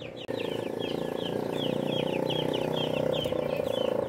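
Young chickens peeping in quick repeated high calls. About a third of a second in they are joined by a louder, low rough buzzing sound that carries on underneath.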